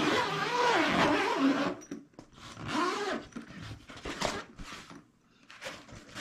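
Zipper on the fabric front panel of a folding camp kitchen shelf being pulled open, a rasp of about two seconds whose pitch wavers with the pulling speed. Shorter zipping and fabric rustling follow as the flap is drawn round and folded back.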